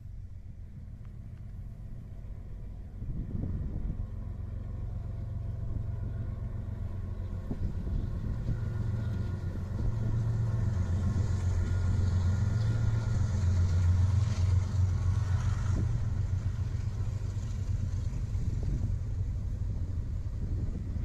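Diesel-hauled freight train crossing a rail overpass: a low locomotive engine rumble that grows louder over the first dozen seconds, then holds steady as the cars roll across the bridge.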